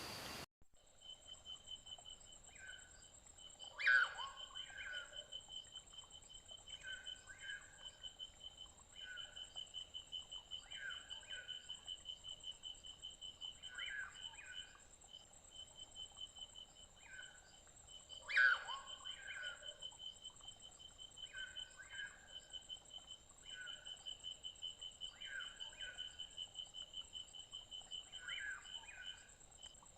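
Faint woodland insect chorus: a steady pulsing high buzz and a thinner, higher whine. Through it, short paired calls from an animal repeat every second or two, with two louder calls about four seconds in and again about eighteen seconds in.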